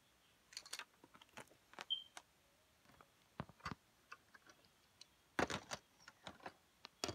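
Irregular light clicks and knocks of hands handling plastic Lego pieces and the phone, with a louder cluster of clatter about five and a half seconds in.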